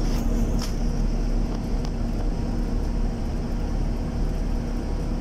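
Van being driven through town, heard from inside: a steady engine hum over road rumble, with a few light clicks in the first two seconds.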